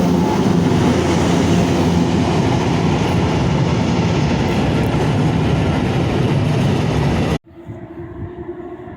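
A train passing close by: a loud, steady rumble of wheels on track. About seven seconds in it cuts off abruptly to a much quieter, steady train sound with a low hum.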